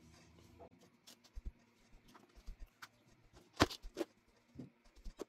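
Scattered faint clicks, knocks and rustles of small objects being picked up and moved off a dresser top, with a sharper click about three and a half seconds in.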